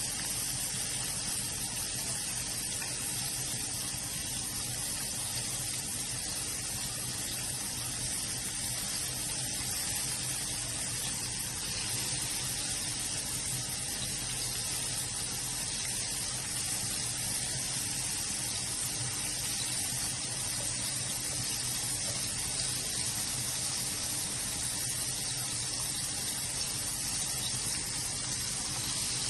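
Chicken skin deep-frying in hot oil: a steady, even sizzle.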